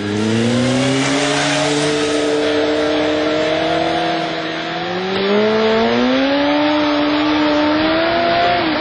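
Motorcycle engine held at high revs, its pitch steady, sagging a little about halfway, climbing again, then dropping off at the end.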